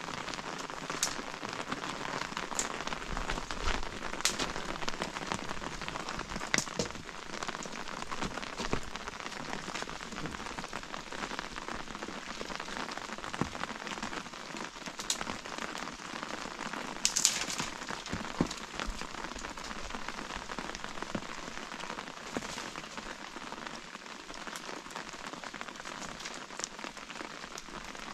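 Steady rain falling, with scattered sharper drops standing out every few seconds. The strongest of these comes about two-thirds of the way through.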